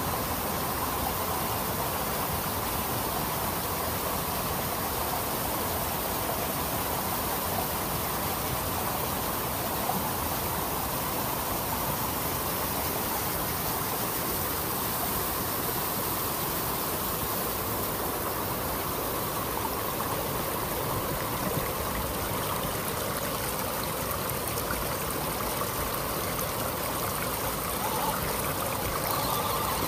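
Steady rush of a shallow creek and small waterfall running over rocks. It grows a little louder near the end as an RC rock crawler splashes through the water.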